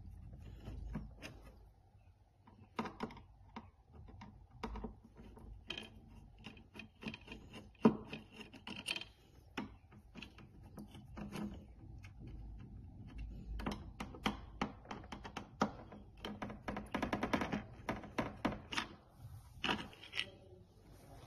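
A screwdriver backing small screws out of a treadmill's plastic housing and the circuit board being handled: irregular small clicks, ticks and plastic scraping. One sharper knock comes about eight seconds in, and the clicks come thicker in the second half.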